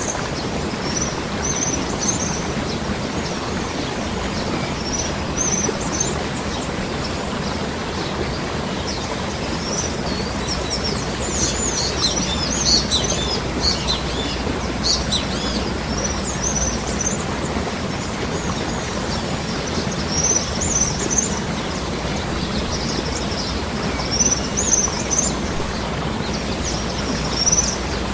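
Waterfall rushing steadily, with birds chirping over it in short high calls, most crowded around the middle.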